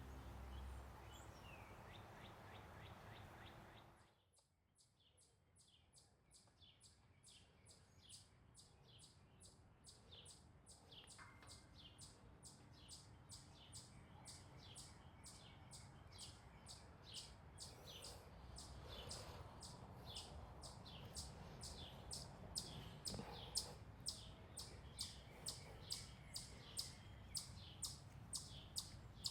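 Music ends about four seconds in, then a chipmunk's repeated sharp chip call, a short high chirp about twice a second, goes on steadily and grows louder toward the end. The caller is taken for a chipmunk, though perhaps a squirrel.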